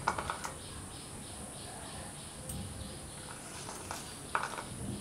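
A metal spoon scraping and clinking in a small steel bowl while scooping whipped cream, in two short bouts: at the start and about four seconds in. A faint rhythmic insect chirping runs underneath.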